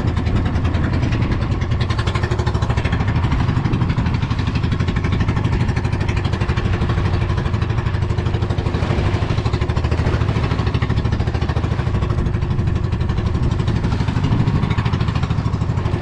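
Small fishing boat's engine running steadily, with a rapid, even beat.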